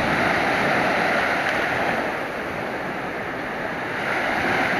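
Small waves breaking and washing up onto a sandy beach: a steady surf hiss that eases in the middle and swells again near the end.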